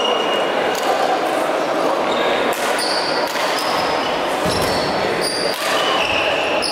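Badminton rally on an indoor court: several sharp racket-on-shuttlecock hits a second or two apart, with short high squeaks of sports shoes on the hall floor, all echoing in a large sports hall.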